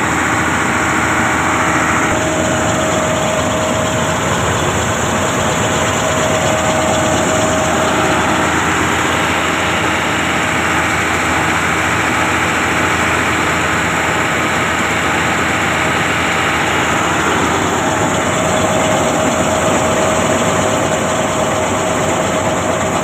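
Combine harvester's engine and unloading auger running steadily under load: a loud, even machinery drone, with a faint steady whine that drops out for a while mid-way and returns.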